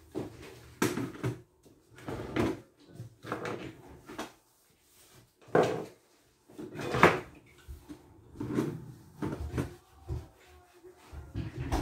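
Irregular knocks, scrapes and rubs of items being moved and wiped on a kitchen worktop around a kettle and sink, with short pauses between them.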